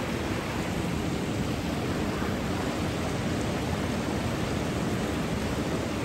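Fast-flowing river rushing over rocks in shallow rapids, a steady rush of water.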